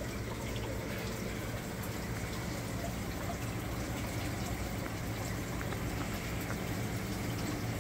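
Steady rush of circulating water in a reef aquarium, with a constant low hum from its pumps.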